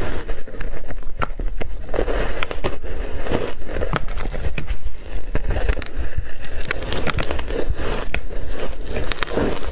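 Block ice coated in matcha powder being bitten and crunched, close-miked: a steady run of sharp cracks as teeth break off big chunks, and near the end the ice is chewed in the mouth.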